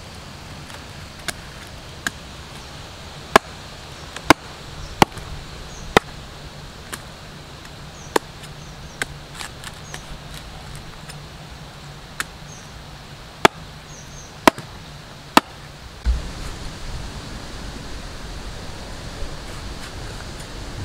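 A curved sickle-like knife chopping into the tough husks of palmyra fruits: sharp, separate chops, roughly one a second. About three quarters of the way through, the chops stop and a steady low rushing noise takes over.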